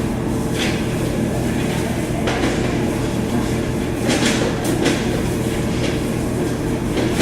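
A steady mechanical hum in the background, with about five short clicks and knocks as the plastic parts of a bulk candy vending machine are handled and fitted back together.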